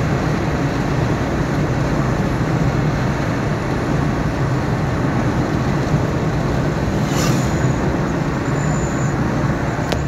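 Steady road noise of a vehicle driving at speed on a highway, mostly tyre and engine rumble, with a brief faint click about seven seconds in.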